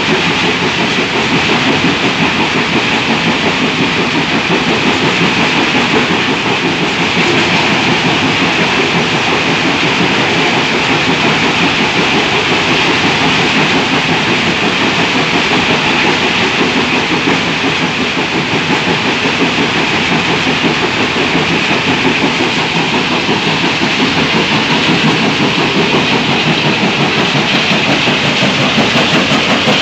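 Jaw crusher crushing stone fed by a vibrating pan feeder: a loud, steady clatter of rock and machinery.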